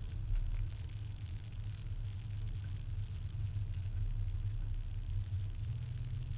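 Car engine running steadily, heard from inside a moving car's cabin as a low, even rumble.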